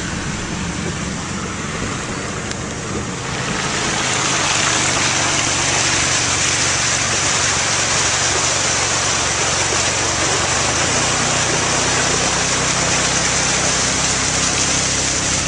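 A vehicle engine idling steadily under a loud, steady hiss of water in heavy rain on a flooded road; the hiss grows louder about three and a half seconds in.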